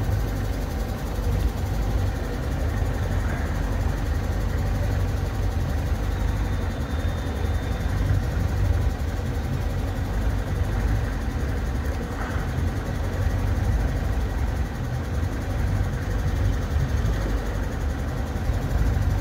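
Small boat's engine running steadily at low cruising speed, with most of the sound in a low rumble.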